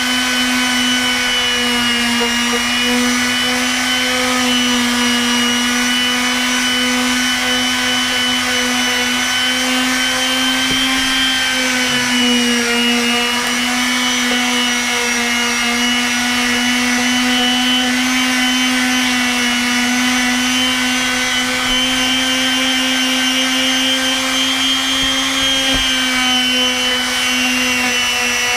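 Makita random orbit palm sander running steadily while sanding deck boards, a constant motor whine whose pitch dips briefly a couple of times.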